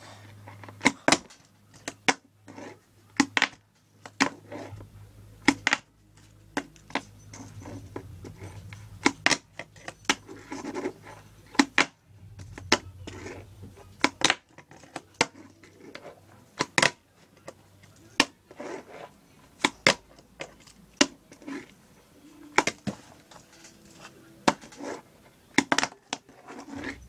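Tech Deck fingerboard flicked and landed over and over on a tabletop: dozens of sharp, irregular clacks of the little board hitting the table, often one or two a second. A faint low hum runs under the first two-thirds.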